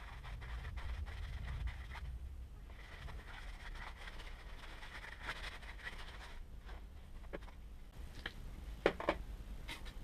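Faint scraping and handling noises with light ticks, then a few sharp clicks near the end.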